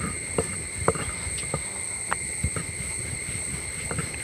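Steady high-pitched insect drone of several held tones over a low rumble, with scattered sharp clicks about once or twice a second.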